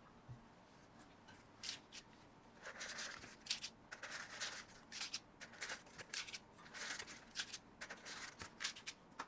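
Irregular short scraping and rustling sounds with a few light clicks. They start about two and a half seconds in, after a quiet opening.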